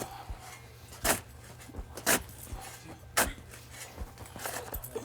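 Flat shovel cutting and scraping into soil, four sharp strokes about a second apart.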